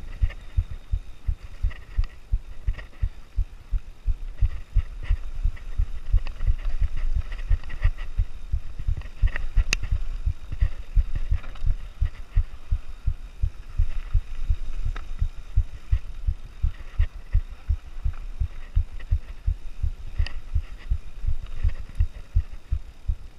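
Nukeproof Mega full-suspension mountain bike ridden down a rough downhill trail, heard through a ride-mounted camera: a rapid, irregular run of low thumps and knocks as the bike and camera jolt over the bumps, with one sharp click about ten seconds in.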